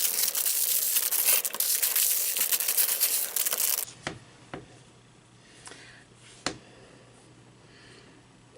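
Lego set packaging being torn open and crinkled, a dense crackling for about four seconds, then a few light clicks and taps.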